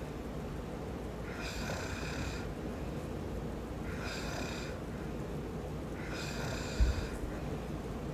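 A sleeping man snoring: three snores about two seconds apart, each with a high, hissing edge. A short low thump comes near the end.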